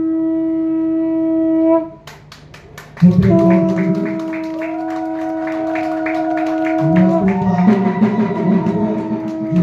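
Conch shells (shankha) blown in long, steady, held notes, sounded for the lighting of the ceremonial lamp. One blast breaks off about two seconds in; another starts about three seconds in, and a second conch joins it at a different pitch. Hands clap in a steady rhythm through the middle.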